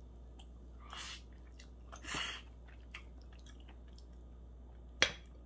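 Eating noodles: two soft chewing sounds, a few faint ticks, then one sharp clink of metal cutlery on the ceramic plate near the end.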